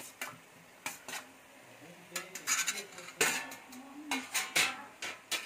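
A metal spoon clinking against a steel plate and a metal pressure cooker as fried potatoes are tipped in: about ten sharp, irregular clinks, some with a brief metallic ring.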